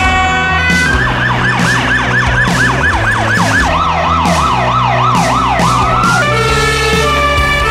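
Emergency vehicle sirens on yelp: fast rising sweeps repeating about four times a second, with a second siren overlapping at a lower pitch about halfway through. Near the end they give way to steady stepped tones.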